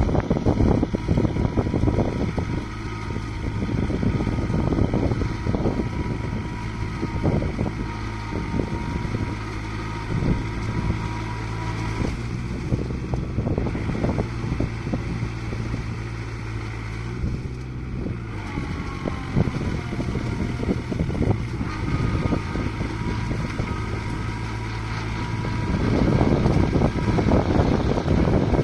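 Kubota MU4501 tractor's four-cylinder diesel engine running steadily under load as it drags a puddler through a flooded paddy field, growing louder near the end as it draws closer. Gusts of wind buffet the microphone throughout.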